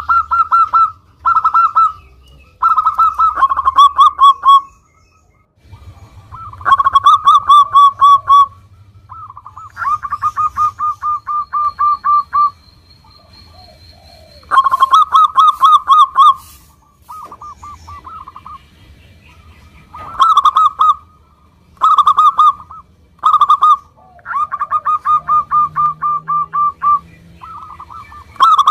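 Zebra dove singing: a series of short phrases, each a rapid run of rolling, staccato cooing notes, repeated with gaps of up to a couple of seconds between them.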